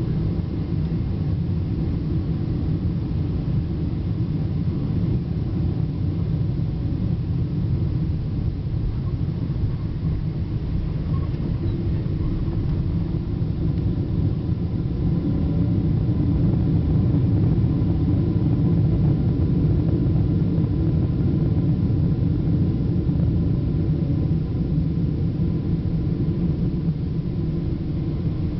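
Steady low rumble of a Boeing 777-200 heard inside the cabin during landing, from the engines and the airflow. It swells louder for several seconds past the middle, then eases back.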